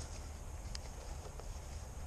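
A few faint rustles and ticks, like movement on dry pine straw, over a steady low rumble.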